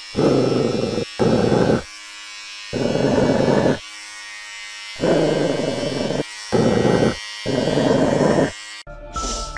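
Electric hair clippers buzzing against hair in six separate spells, each a second or so long, cutting off sharply between them.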